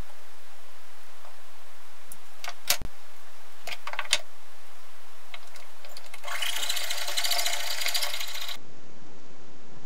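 Jeweller's piercing saw cutting a brass tube held against a wooden block: a rapid, even run of fine rasping strokes lasting a little over two seconds in the second half. Before it come a few light clicks and knocks as the tube and block are handled.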